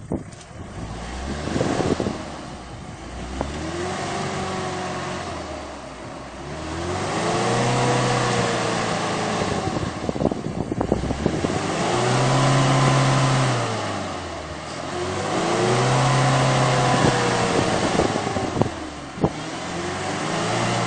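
Mitsubishi Pajero 2's engine revving hard, its pitch climbing and falling back in about five surges, as the SUV works its buried wheels through deep mud.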